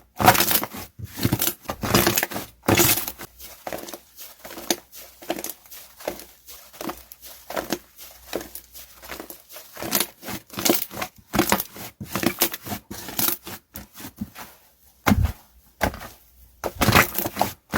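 Sky-blue slime being squeezed, pressed and pulled by hand: a dense, irregular run of short crackling squishes, several a second, with brief pauses.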